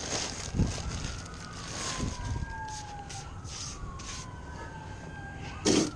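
Emergency vehicle siren wailing in the distance, its pitch sliding slowly down and back up. A few knocks are heard over it, with a sharper knock near the end.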